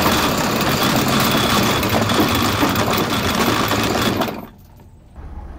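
Anchor chain running out over a ship's deck windlass as the anchor is let go: a loud, fast, continuous rattle of steel links that stops suddenly about four seconds in. A much quieter steady low hum follows near the end.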